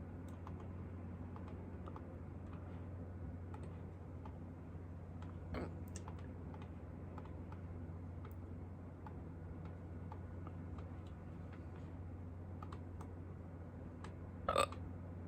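Two short hiccups from a woman, a softer one about five seconds in and a louder one near the end. Underneath is a steady low hum with scattered faint ticks.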